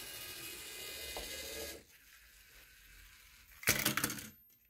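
LEGO EV3 robot's motors and plastic gears whirring steadily as it drives for about two seconds, then stopping. Near the end a short, louder burst of gear noise as the medium motor tips the color-sensor trap to dump the marbles into a cup.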